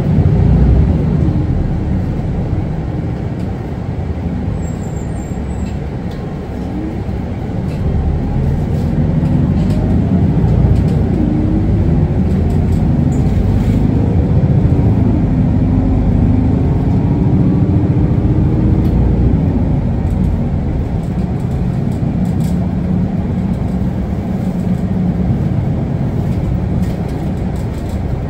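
Isuzu Erga city bus running, heard from inside the cabin: a steady diesel engine and road rumble. In the middle stretch the engine's pitch climbs several times as the bus picks up speed, then it settles into a steady run.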